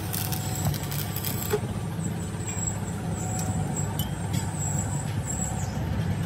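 Stick-welding arc crackling on the steel axle housing for about a second and a half, then stopping, over a steady low engine rumble.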